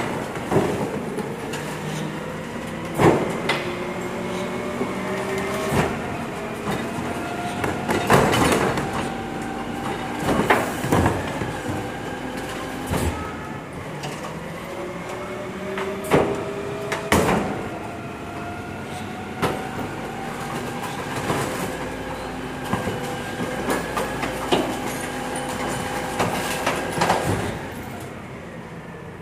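Volvo FE 300 rear-loader recycling truck's hydraulic bin lifter and compactor running: a whine that rises slowly in pitch over several seconds, twice, under repeated metal clanks and bangs as the wheeled bin is tipped, shaken out and lowered.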